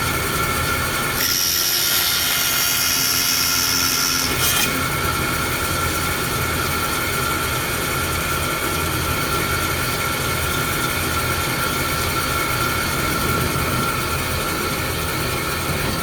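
Bandsaw running with a steady whine; from about one second in to about four and a half seconds its blade cuts into a thin sheet of clear polycarbonate, adding a high hiss.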